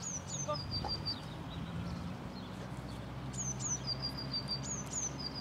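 A songbird sings the same phrase three times: two high down-slurred notes, then a quick run of about five short even notes. Under it runs a steady low hum from the small electric motor and propeller of the RC plane flying overhead.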